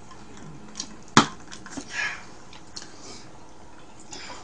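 A glass set down on the table with one sharp clink about a second in, followed by a few softer clicks and light rustles of handling at the table.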